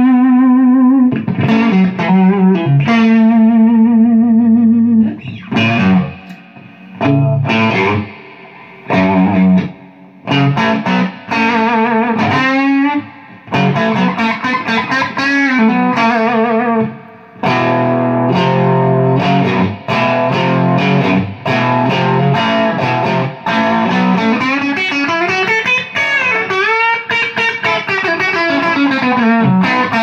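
Electric guitar solo on a Strat-style partscaster with Lindy Fralin pickups, played through an Orange AD30 single-channel tube amp with a Diaz reverb unit in front. The lines hold notes with vibrato and bend strings up and back down, broken by a few short pauses.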